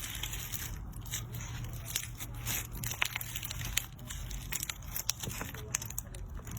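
Slime being squeezed and pressed by hand, giving off irregular crackles, clicks and crunches.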